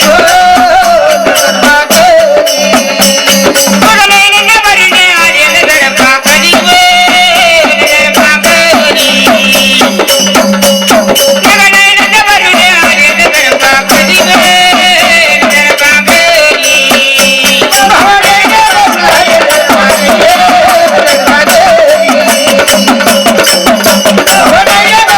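Marathi devotional folk music: a sung, wavering melody over a steady drone, with fast, dense rattling percussion keeping the beat throughout.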